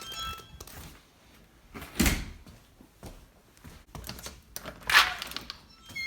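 Two heavy thuds about three seconds apart, the second sharper, with a few faint short chirps near the start and end.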